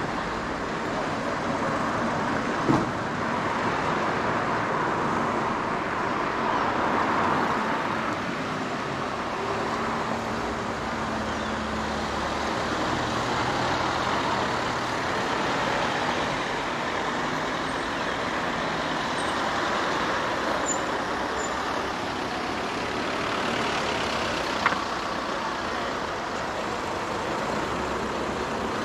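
Road traffic: a steady wash of passing vehicles' engine and tyre noise, with an engine's low hum standing out for several seconds in the middle and two sharp clicks.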